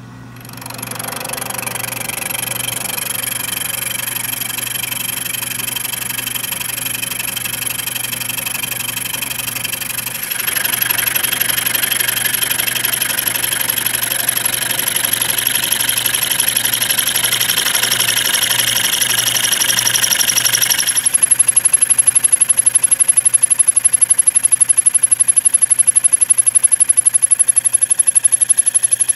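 Milling machine spindle running with a boring head cutting a radius into a bronze bushing. The cutting noise gets louder about ten seconds in, and louder again about twenty seconds in, where it turns into a rapid, regular pulsing.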